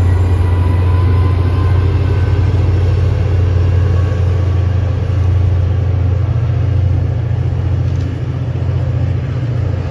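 EMD F40-series diesel locomotive's V16 two-stroke engine running under load as it shoves its commuter coaches away: a loud, steady low drone that eases a little near the end.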